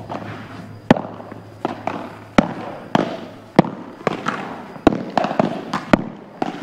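Padel ball being hit back and forth in a rally: a quick series of sharp pops from racket strikes and bounces, the loudest about once a second with lighter ones in between.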